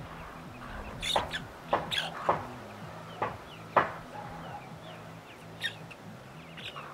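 Mother hen giving short, sharp clucks at an opened anthill, a string of them mostly in the first four seconds: a hen's food call to her chicks. Faint, short falling peeps from the chicks come in between.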